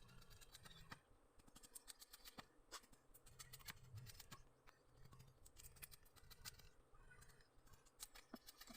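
Sugar cane fibre cracking and crunching: faint, irregular crisp clicks, several a second.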